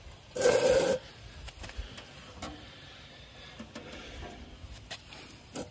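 Handling noise from sheet-metal blower parts being moved by hand: a brief rustling burst about half a second in, then faint rubbing and light clicks.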